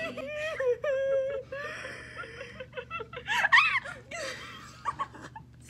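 Girls laughing and giggling, in short voiced bursts.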